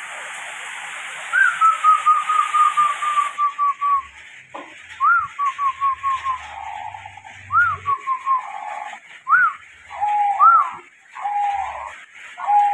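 Caged zebra dove (perkutut) singing: repeated phrases, each a rising note followed by a quick run of short staccato coos that fall slightly in pitch; in the second half the phrases turn shorter and lower. A steady hiss underlies the first three seconds and then drops away.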